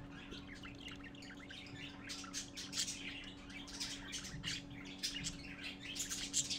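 Budgerigars chirping in a rapid, dense stream of short high calls, busier from about two seconds in, over a steady low hum.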